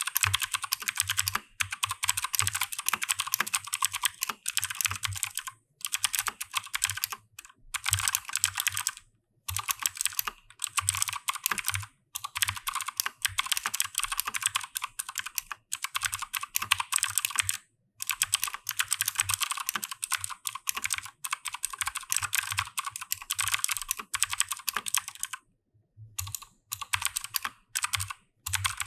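Keychron K2 V2 mechanical keyboard with clicky blue switches being typed on fast, in runs of rapid keystrokes broken by short pauses.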